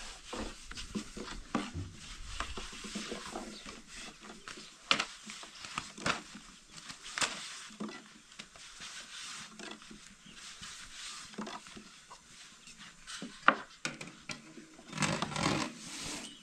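Thin wooden rolling pins rolling out flatbread dough on wooden boards, giving irregular light clicks and taps as the pins knock against the boards. A sharper knock comes near the end.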